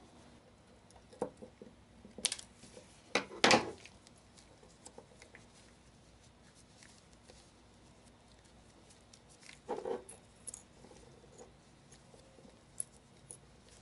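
Hands working on a pair of 18650 lithium-ion cells with a small blade: scattered clicks, scrapes and knocks of metal and cell casings, loudest a few seconds in and again about ten seconds in.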